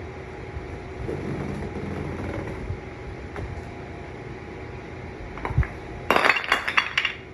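Giant wooden Jenga blocks falling from the tower and clattering on a hard floor: a low thump, then about a second of sharp wooden knocks near the end.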